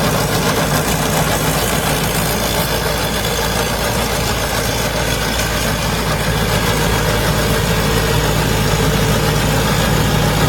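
Combine harvester's diesel engine running steadily at an even speed.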